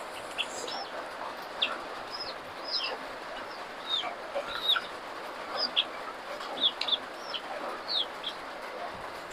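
Birds chirping: short, high, downward-sliding peeps, about one or two a second, over a steady background hiss.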